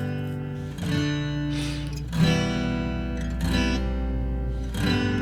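Music: an acoustic guitar strumming slow chords, with a new strum about every second and a half.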